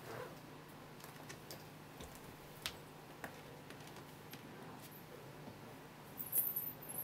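Faint scattered light clicks and a short rustle about six seconds in from a cat fursuit being moved by its wearer, over a low steady hum of room tone.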